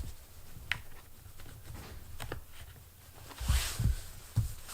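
Handling sounds of a plastic headlight housing with rubber grommets: scattered light clicks, then several dull thumps from about three and a half seconds in.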